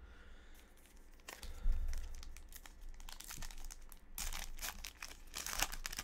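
A 2020 Topps Allen & Ginter card pack wrapper being torn open and crinkled by hand: a run of crackling rustles that starts about a second in and is loudest near the end.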